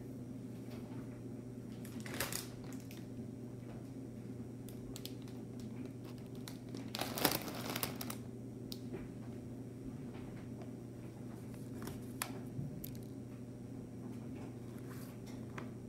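A plastic tortilla-chip bag crinkling as it is set down on a glass cutting board, loudest about seven seconds in, with fainter rustles about two and twelve seconds in, over a steady low hum.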